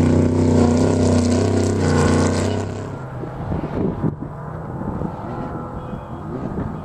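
Off-road desert race truck's engine running hard as the truck drives past, then fading away about three seconds in.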